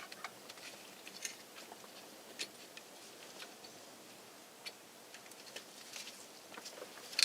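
Faint, irregular small clicks and taps of hands working a turn signal switch's wiring harness and plastic pieces through a steering column.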